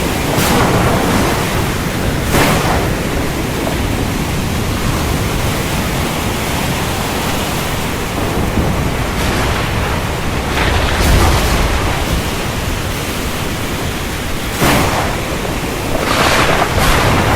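Steady heavy rain with thunder: several brief sharper cracks and a deep rumble about ten seconds in.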